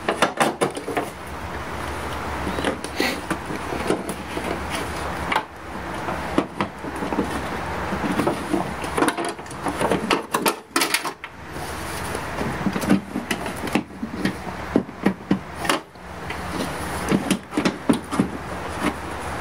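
Clicks, knocks and rustles from hands working on plastic parts in a car's engine bay over a steady low hum.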